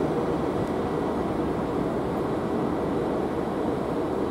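Italian E.483 electric locomotive, a Bombardier TRAXX, moving slowly away along the track, giving a steady, even rumble.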